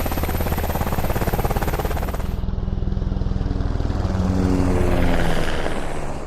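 Sikorsky UH-60M Black Hawk military helicopter running, its rotor blades giving a fast, even chop under the turbine noise. The high hiss cuts out abruptly about two and a half seconds in, and a cluster of engine tones slides down in pitch between about four and five and a half seconds in.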